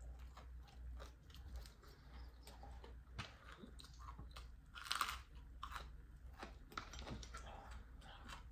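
Chewing a mouthful of crisp-coated fried catfish: scattered soft crunches, one louder about five seconds in.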